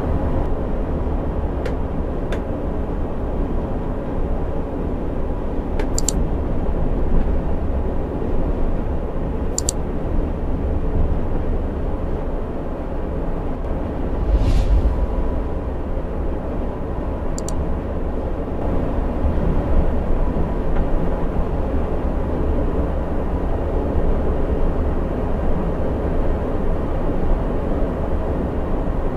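Cabin noise of a coach cruising on a highway: steady engine drone and road rumble, with a few short clicks and a brief swell in the noise about halfway.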